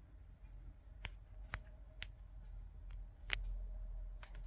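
A few separate sharp clicks and taps from a 1929 Continental portable typewriter being handled, the loudest about three seconds in, over a low hum.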